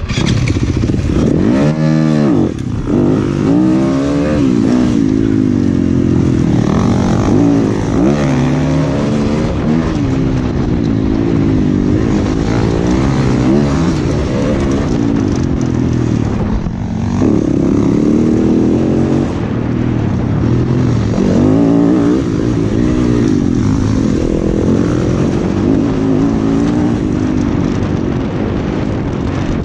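Off-road dirt bike's single-cylinder engine under hard riding, its pitch climbing and dropping again and again as the throttle is worked and gears change.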